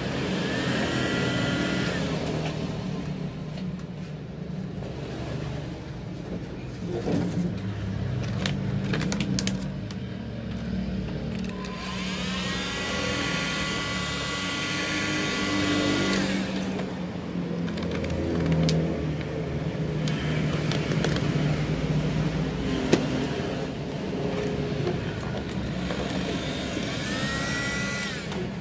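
Heat gun switched on three times, its blower motor whine rising in pitch as it spins up and then holding: briefly about a second in, for about four seconds in the middle, and again at the end. A steady low rumble runs underneath.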